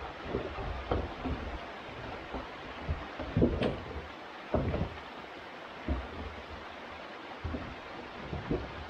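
Creek water running steadily, with irregular thumps and knocks as an old water tank is shoved and rolled in the creek bed; the loudest knocks come about halfway through.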